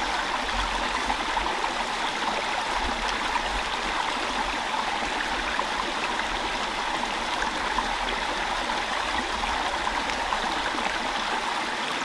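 Small upland stream babbling steadily, with no breaks or changes.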